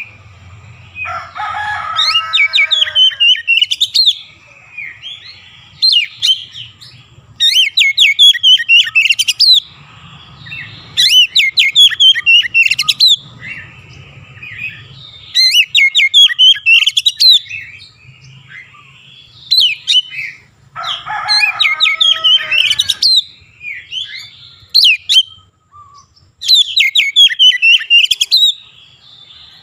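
Oriental magpie-robin singing loudly in repeated bursts of a second or two, full of rapid whistles and trills, with short pauses between phrases. The song is laced with mimicked Javan myna (jalak kebo) calls, including harsher, lower phrases near the start and about two-thirds of the way through.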